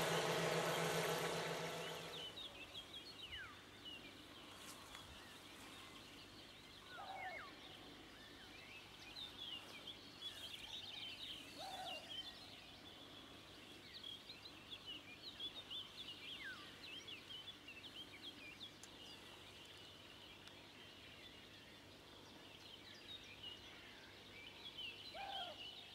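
A vehicle engine running, which drops away about two seconds in, leaving quiet open-air ambience with many small birds chirping and a lower bird call heard three times.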